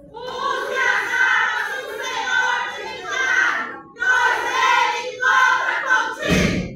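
A group of women's voices chanting a recitation in unison, in phrases with short pauses between them. A loud thump comes near the end.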